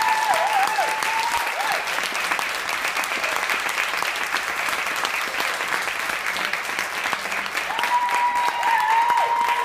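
Audience applauding steadily, with long high-pitched calls ringing out over the clapping at the start and again near the end.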